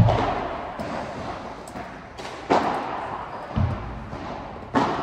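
Padel ball struck back and forth with padel rackets in a rally: sharp pops a couple of seconds apart, ringing on in the covered hall, with a dull thud of the ball against the court about halfway through.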